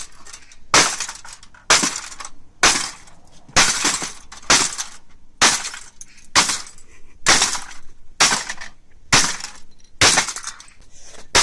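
Repeated hard blows striking the printer's laser module housing, about one a second, each a sharp crack with a brief clatter, as the casing is broken open.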